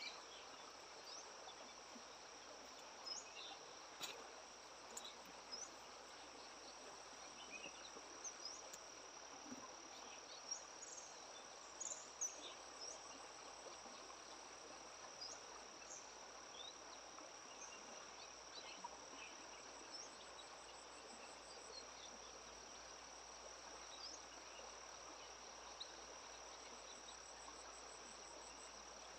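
Faint, steady high-pitched insect trill, with scattered short high chirps over it and a second pulsing trill joining now and then.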